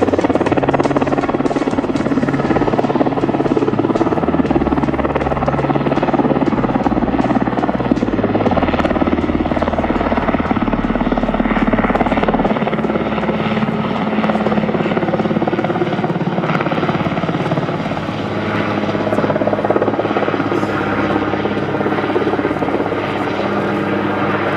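Eurocopter AS332 Super Puma helicopter in flight, its rotor and twin turbine engines running steadily and loudly.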